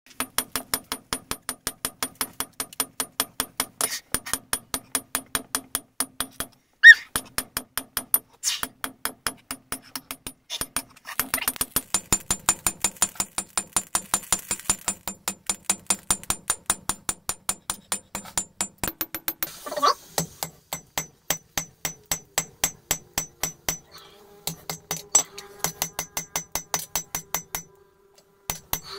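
Hammer blows on the steel of a jackhammer bit being forged into a blade, in a fast, steady rhythm of about four strikes a second. Each strike has a high metallic ring. The hammering stops and starts again several times, and one much louder blow falls about seven seconds in.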